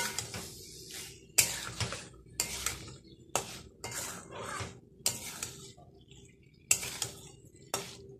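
Spatula scraping and knocking against a metal kadai as thick spiced pumpkin curry is stirred and fried down, in a dozen or so quick irregular strokes with a short pause past the middle.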